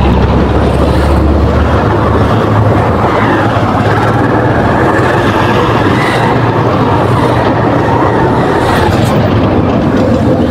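Motorcycle running along a city road, heard from on the bike: a loud, steady engine and rushing noise, with the low rumble easing about two seconds in.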